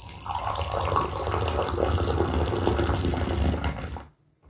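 Tea poured from a raised teapot into a glass: a steady splashing stream for about four seconds that stops suddenly.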